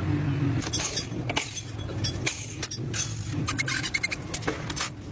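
A string of sharp metallic clinks and knocks, some ringing briefly, over a low rumble that is strongest in the first half-second.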